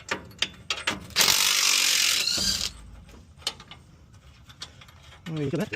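A ratchet wrench clicking as a nut on the rear axle U-bolt hardware is backed off, broken by a louder noisy burst lasting about a second and a half starting about a second in.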